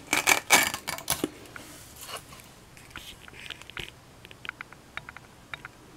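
Handling noise: a quick cluster of loud clicks and rustles in the first second, then scattered lighter clicks and taps as the test rig and camera are handled.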